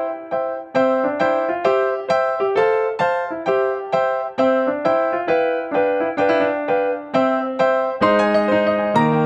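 Background music: a keyboard (piano or electric piano) playing a melody of evenly paced, struck notes, about two to three a second. Fuller chords with lower notes join in near the end.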